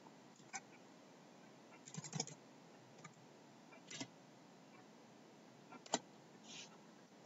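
Faint, scattered computer keyboard keystrokes typing a short file name: a quick cluster of taps about two seconds in, single clicks here and there, the sharpest near six seconds.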